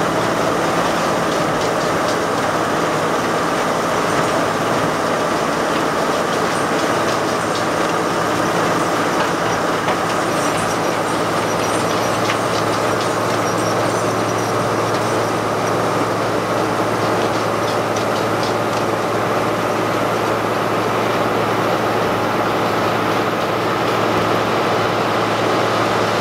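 Tree grinder's engine running steadily, with light rattling clicks from the machine in the middle stretch.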